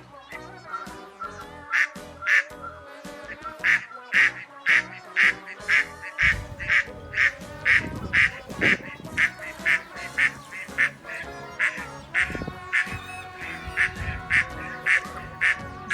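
Ducks quacking over and over, short sharp quacks about two or three a second, over background music.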